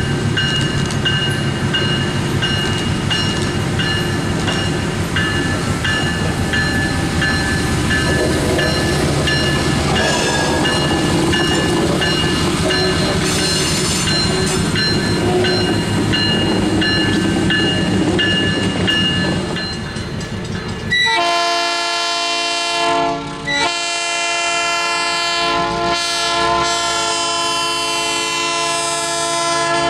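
Crandic EMD MP15AC switcher locomotive and its slug rolling by slowly, diesel engine running steadily. About two-thirds of the way in the locomotive's multi-chime air horn sounds in long blasts, broken twice briefly, for a grade crossing.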